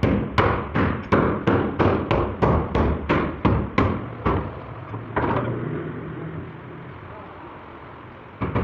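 Rapid hammer blows on car body metal, about three a second, for some four seconds, then a single last blow about a second later: panel beating of the crash-damaged bodywork.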